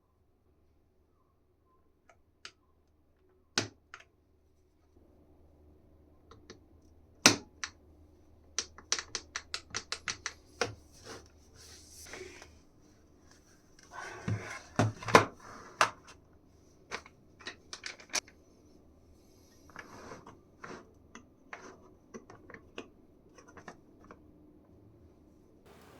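Small keyboard parts being handled at close range: scattered sharp clicks and taps, with a quick even run of about a dozen clicks about a third of the way in, and a few short scraping rustles.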